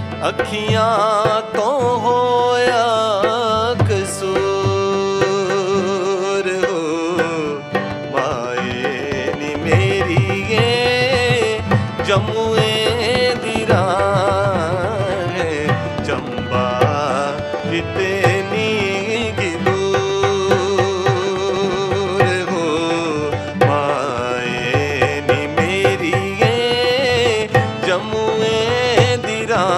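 Instrumental interlude of a Hindustani-style folk song: harmonium and electronic keyboard play an ornamented melody over a tabla rhythm.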